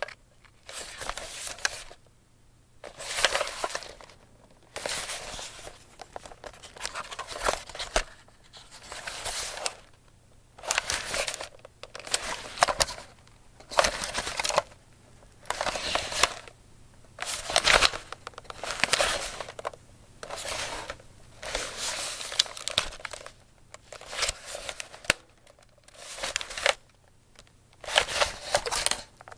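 A camera being handled: about fifteen short bursts of rustling, scraping and small clicks, each lasting a second or so, with brief pauses between.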